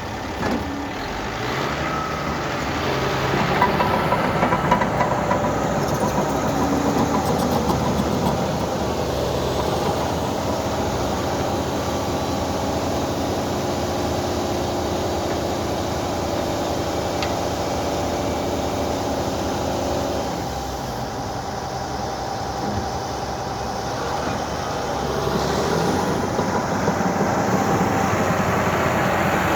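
Heavy diesel earthmoving machinery running under load, its engine note steady with louder spells a few seconds in and near the end and a brief easing off around two-thirds of the way through.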